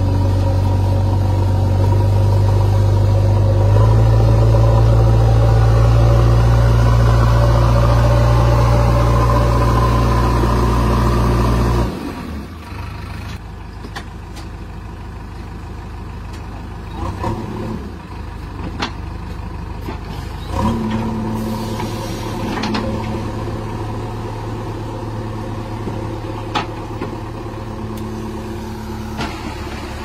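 JCB backhoe loader's diesel engine running loud and steady under load. About twelve seconds in it drops suddenly to quieter running, with a few sharp knocks after that.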